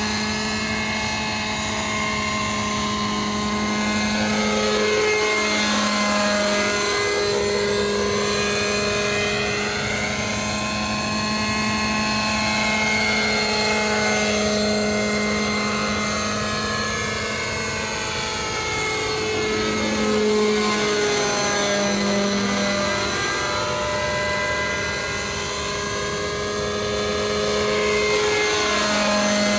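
Align T-Rex 600 radio-controlled helicopter in flight: a steady rotor and drivetrain drone with held tones. The sound swells and eases, and its colour sweeps as the helicopter flies back and forth, closer and farther away.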